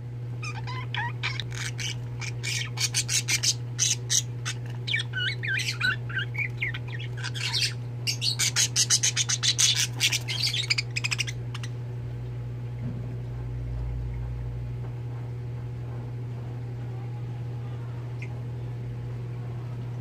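Budgerigars chirping and chattering in rapid, warbling bursts for about the first eleven seconds, then falling quiet, over a steady low hum.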